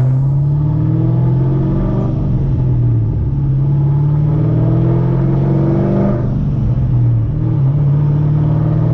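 2010 Camaro SS's LS3 V8 under way through a manual gearbox. The note climbs for about four seconds under acceleration, then drops suddenly about six seconds in as the car is shifted up a gear, and settles into a steady drone.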